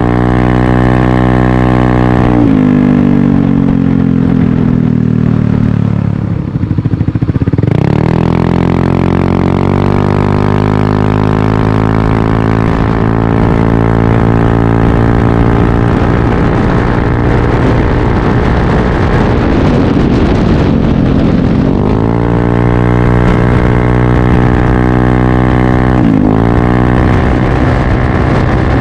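Yamaha Aerox 155 scooter's single-cylinder engine running loud through an aftermarket header and Corse Italian Performance carbon slip-on exhaust, revved up several times: the pitch climbs quickly and sinks slowly back, dropping near idle about six seconds in before the next rev.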